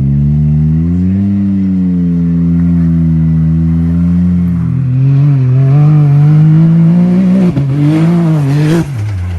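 Can-Am Maverick X3's turbocharged three-cylinder engine revving under load on a slow attempt at a steep slope. Its pitch rises about a second in, holds, then wavers and climbs before dropping off sharply near the end.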